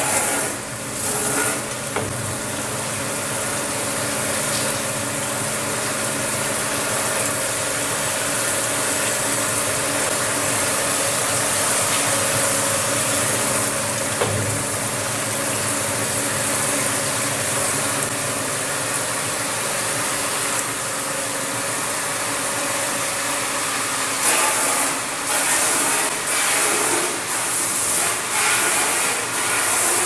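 Rotary glass-bottle washing machine running: water jets hissing as they spray into the inverted bottles, over a steady mechanical hum. The sound becomes more uneven in the last few seconds.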